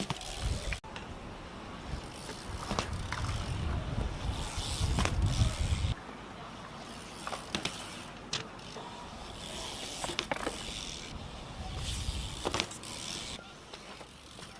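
BMX bikes riding on skatepark concrete: tyres rolling, with scattered sharp knocks and clacks, and a low rumble that swells for a few seconds near the start.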